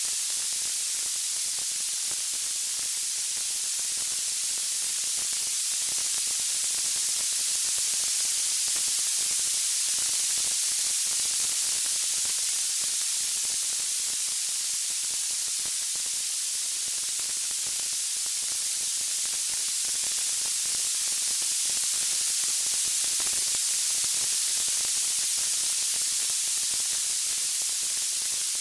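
Steady high-pitched white-noise hiss, with no crackles or pops, slowly swelling and easing in loudness.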